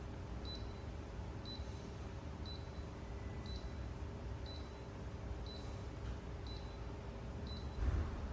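Short, high electronic beeps about once a second, steady and identical, from a Mitsubishi Electric ceiling-cassette air conditioner in its error self-check mode. They sound over a steady low hum, and a dull thump comes near the end.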